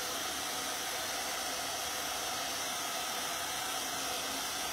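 Handheld blow dryer running steadily, a constant even hiss, blowing on freshly painted wood to dry the paint.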